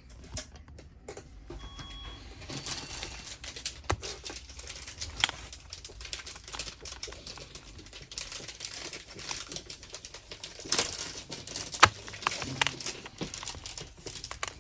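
Work on a laptop's casing to open it: a dense, irregular run of small clicks, scrapes and snaps, with a few sharper clicks, the loudest about twelve seconds in.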